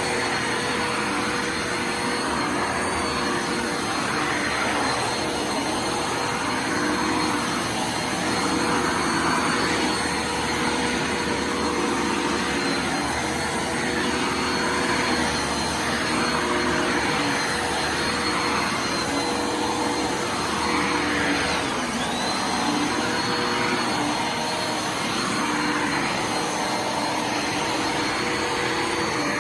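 Bissell Lift-off Multi Cyclonic Pet upright vacuum running steadily while vacuuming the floor, a dense motor-and-airflow noise with a thin high whine on top.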